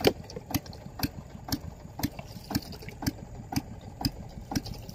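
Small fishing-boat motor idling: a low rumble with a sharp knock repeating evenly about twice a second.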